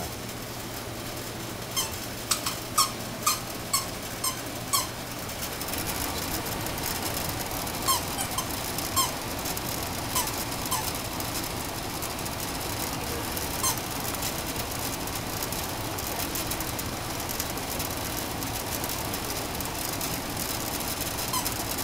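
Short high squeaks as a chocolate Labrador puppy chews a tennis ball: a quick run of about seven, two a second, near the start, then a few scattered ones later, over a steady background hiss.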